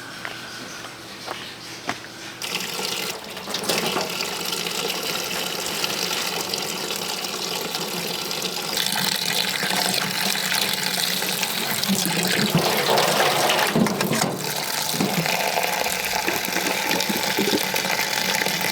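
Water running from a tap and splashing, starting a couple of seconds in and getting louder around the middle.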